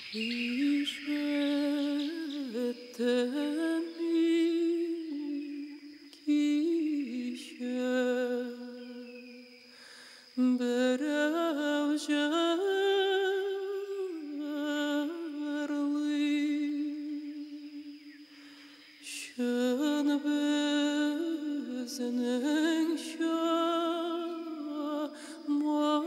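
Soundtrack music: a slow, wordless hummed melody of long held notes. It dies away twice, about ten seconds in and again around eighteen seconds, before picking up again.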